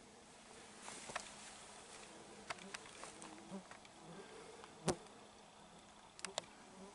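Faint buzzing of an insect such as a fly, with a few sharp clicks and small snaps; the sharpest click comes about five seconds in.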